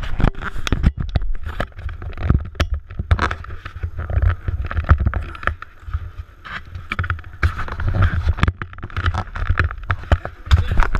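Camera handling noise: the camera's microphone rubbed and knocked by hands and clothing as it is moved and positioned, a run of irregular knocks and scrapes over a low rumble.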